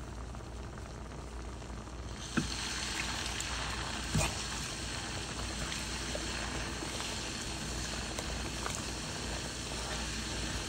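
A pot of rice and chicken gizzards in broth being stirred with a silicone spatula: a wet sloshing hiss that grows louder about two seconds in, with a few light knocks of the spatula against the pot.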